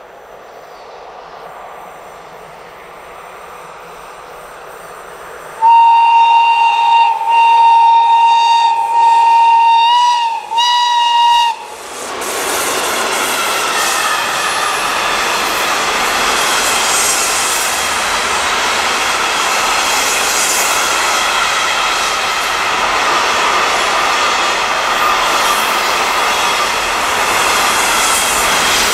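An approaching freight train's locomotive sounds its horn for about six seconds: one steady note broken by a few short gaps. About a second after the horn stops, the container train's wagons roll past loudly and steadily, wheels rumbling on the rails with a faint whine.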